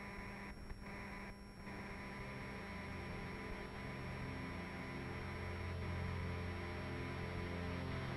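A low, steady droning hum made of several held tones, slowly growing louder.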